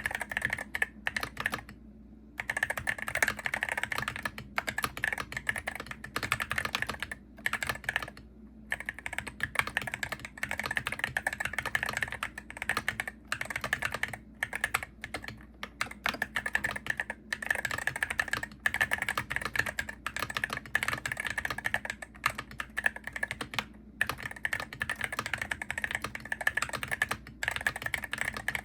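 Continuous rapid typing on a Hero68HE gaming keyboard, keystrokes clicking in quick succession, with short pauses about two and eight seconds in.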